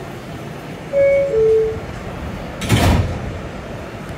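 R211S subway car door-closing chime: two descending tones about a second in. Near the end the sliding doors shut with a single thump.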